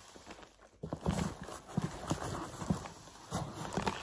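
Cardboard box being handled and shifted on a tabletop: irregular knocks and taps of hands and cardboard, starting about a second in.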